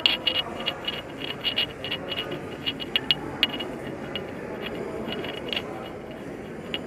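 Irregular sharp clicks and taps, several a second, over a low crowd murmur in the underground cistern hall. The clicks are densest in the first half and thin out toward the end.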